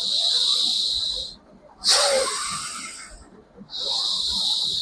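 A person breathing forcefully through the nose in bhastrika pranayama (bellows breath): three long, hissing breaths, each lasting one to one and a half seconds, with short pauses between them.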